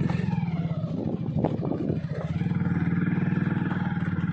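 Motorbike engine running steadily under a rider, heard from the pillion seat, with a brief knock about a second and a half in.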